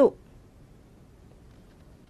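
A spoken word ends right at the start, then a pause with only faint background hiss.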